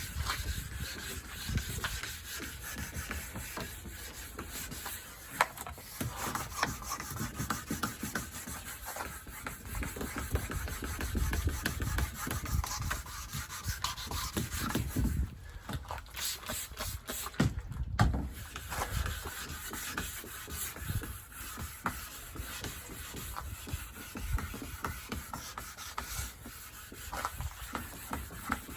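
Fine-grit wet sandpaper, around 2000 grit, rubbed back and forth by hand over a car's painted body panel, making an uneven scratchy rubbing.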